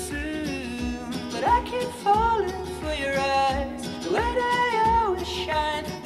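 An upbeat song with a steady beat and a sung melody, played back through JBL LSR305 studio monitors and picked up by a microphone in the room.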